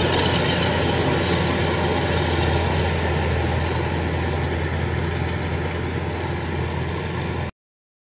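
Kubota DC-105X combine harvester running steadily under load while cutting and threshing rice: a continuous diesel drone with mechanical noise over it. The sound cuts off abruptly near the end.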